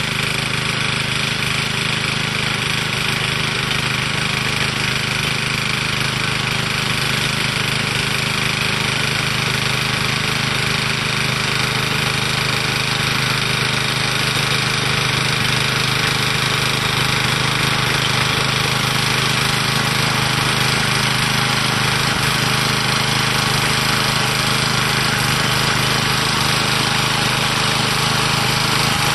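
Small engine of an old garden tiller, retrofitted to run on propane, running steadily under load as it tills soil.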